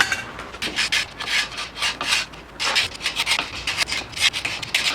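Scraping acetone-softened wrap adhesive off a wooden drum shell: a quick, irregular run of short scraping strokes, about three a second.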